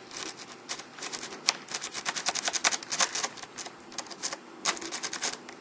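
Saw rake pick worked in and out of the keyway of a rim cylinder lock under light tension: rapid, irregular metallic clicking as the pick rattles across the pin stacks.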